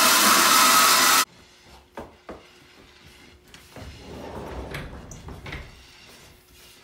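A loud steady rushing noise that cuts off suddenly about a second in. Then two light knocks, and wooden boards sweeping and levelling steamed rice for koji across a cloth-covered bed, a soft scraping rustle.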